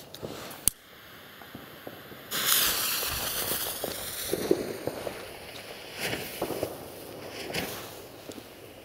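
Firework battery's fuse hissing as it burns: a sudden loud hiss about two seconds in that fades over several seconds, after a single sharp click. A few small pops and handling noises follow.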